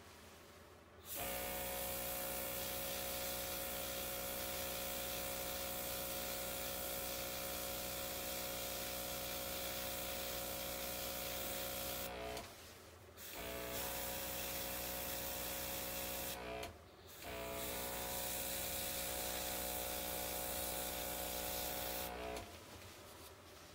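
OPAWZ airbrush kit's small compressor running with the hiss of air spraying from the airbrush, in three long stretches with two short pauses, starting about a second in and stopping shortly before the end.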